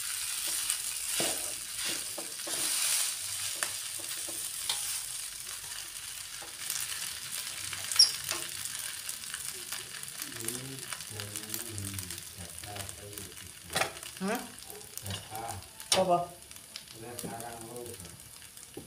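Fried rice sizzling in a hot wok, with a metal spatula scraping and clicking against the pan as the rice is stirred. The sizzle is strongest at the start and settles lower once the stirring stops.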